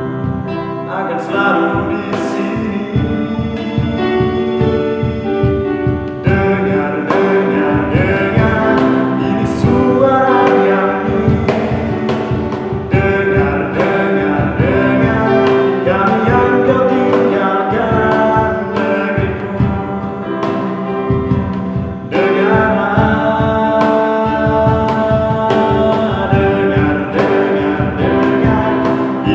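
A male voice singing an Indonesian song, accompanied by strummed acoustic guitar, electronic keyboard and a steady beat on a cajón.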